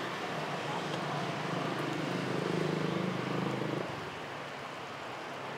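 Street traffic: a vehicle engine hums past, swelling and then dropping away just before four seconds in, over a steady hiss.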